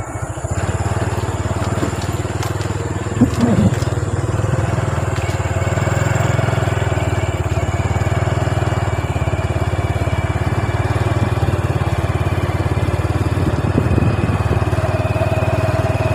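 Motorcycle engine running steadily while riding, heard from the rider's seat, with one brief thump a little over three seconds in.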